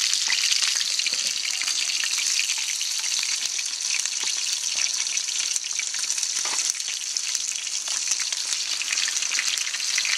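Battered walleye pieces frying in oil in a metal tray over a campfire: a steady sizzle with many small crackles and pops.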